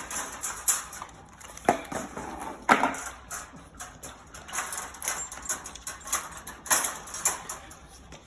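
French bulldogs eating raw food from bowls: quick, irregular wet licking and chewing clicks, with a few louder knocks.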